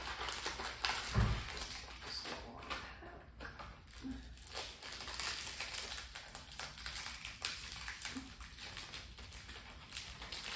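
Snack packaging being opened by hand: a cardboard box of wafer sticks and its plastic inner wrapper crinkling, rustling and tapping, with one dull thump about a second in.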